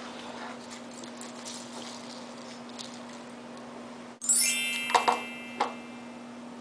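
A steady low hum with small clicks, then about four seconds in a bright, sparkling chime sound effect rings out and fades over about a second. Two short clicks follow.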